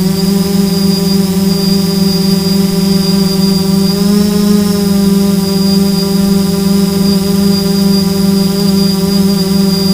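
FPV drone's motors and propellers running steadily, a loud hum with a thin high whine above it. The pitch wavers slightly about four seconds in.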